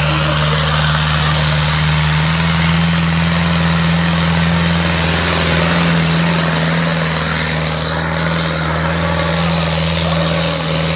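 Modified diesel tractor engine running hard and steady while dragging a heavy load, a loud, even drone.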